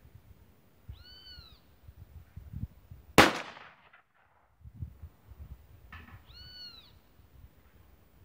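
A single shot from a Miura II 20-gauge over-and-under shotgun loaded with 3T buckshot, about three seconds in: one sharp blast with a short ringing tail. A short call that rises and falls in pitch is heard twice, once before the shot and once after.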